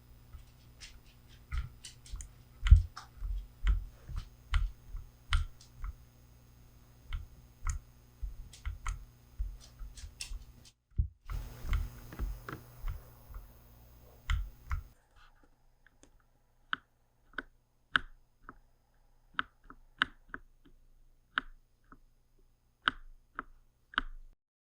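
Keystrokes on Keychron mechanical keyboards fitted with Gateron switches, brown (tactile) on one and red (linear) on the other, pressed one or two at a time for comparison. About 15 s in the sound changes from deeper, fuller keystrokes to sparser, sharper clacks as the other keyboard takes over.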